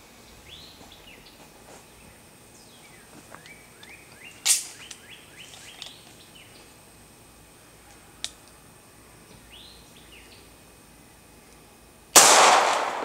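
Birds chirping, then a single shot from a Taurus 92F 9mm pistol near the end, firing a 124-grain Speer Gold Dot hollow point, with a ringing tail that fades over about a second. A shorter sharp crack comes about four and a half seconds in.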